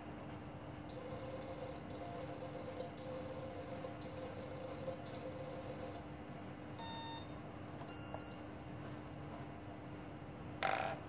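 Sunnysky 2212 brushless motors at minimum throttle on BLHeli 20 A ESCs, giving a high electronic whine in five stop-start pulses of about a second each: the low-throttle motor stutter being diagnosed. Two short beeps follow, and a brief rush of noise comes near the end.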